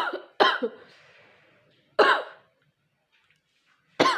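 A woman coughing hard in short fits: two coughs in quick succession, another about two seconds in, and one more starting near the end.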